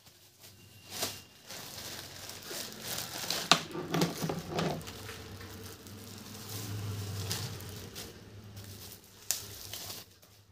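Clear plastic packaging bags crinkling and rustling as cables and a microphone are unwrapped and handled, with a few sharp clicks.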